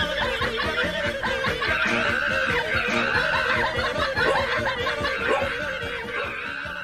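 Laughter over background music with a steady beat.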